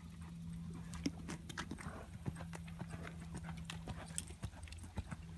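Horse's hooves clopping in an irregular series of sharp knocks, over a steady low hum.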